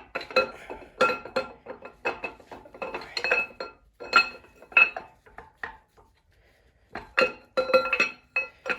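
Camshaft clinking and rattling against the cam bearings as it is wiggled and twisted out of a 5.3 LS engine block: a quick run of sharp metallic clinks with a ringing tone, pausing for about a second past the middle before more clinks.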